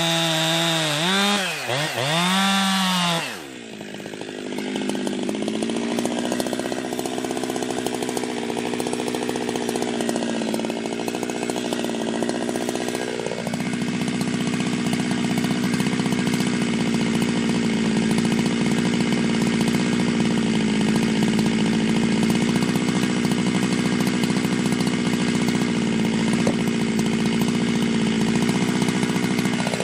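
Ported two-stroke Jonsered 2071 chainsaw running at high revs, dipping twice. About three seconds in, the revs drop sharply as it settles into a long steady run under load, typical of the chain working through wood.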